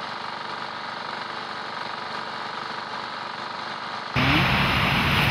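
An engine running steadily, a hum with several unchanging tones. About four seconds in it cuts off abruptly and loud wind noise on the microphone takes over.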